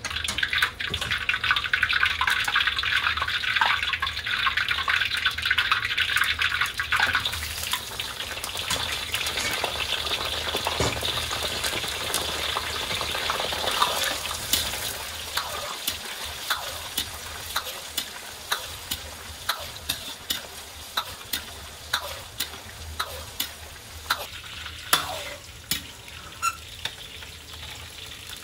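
Eggplant pieces deep-frying in hot oil in a wok: a loud, dense sizzle for the first several seconds, settling into a fainter steady bubbling hiss. From about halfway in, sharp ticks come about one and a half times a second.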